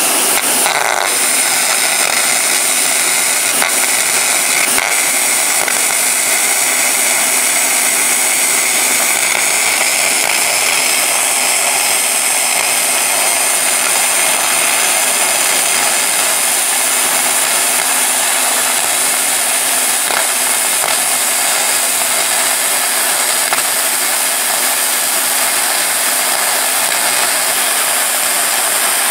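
RustBusters twin-wire arc spray gun spraying molten zinc with compressed air: a loud, steady hiss of air and arc, with a steady low hum underneath.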